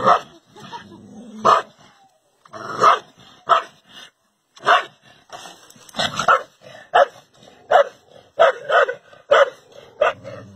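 Dog barking repeatedly at its own reflection: about a dozen sharp barks at uneven intervals, some in quick pairs, with a short pause about four seconds in.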